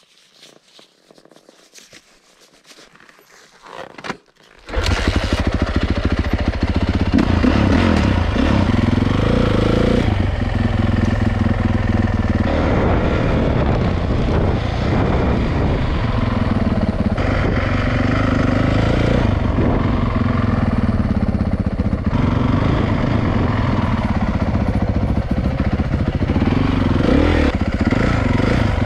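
A few seconds of faint rustling and handling noise, then a 450cc four-stroke dirt bike engine cuts in abruptly and runs loud through the rest, heard from on board the bike. Its note rises and falls with the throttle as the bike is ridden along a trail.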